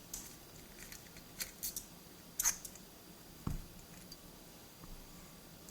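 Light metallic clicks and taps of a dimple lock being taken apart by hand, a few scattered ticks, then a single duller knock about three and a half seconds in.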